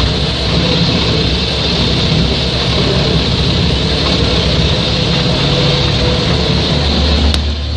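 MUS-MAX Terminator 10 wood chipper running steadily, a deep rumble under a loud even rush of noise. A sharp click comes just before the end.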